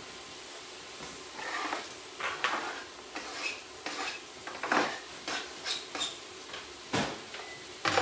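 Kitchen utensils, a chopping board and pans clattering irregularly as a cooking station is cleared, with sharper knocks about seven seconds in and again at the end.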